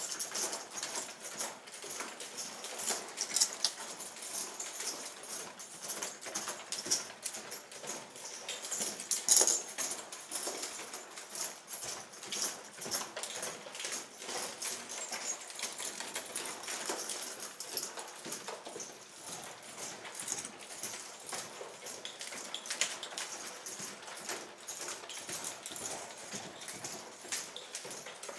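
A horse's hoofbeats in the loose sand footing of a round pen: an irregular run of soft crunching steps as the horse moves around the handler on a rope.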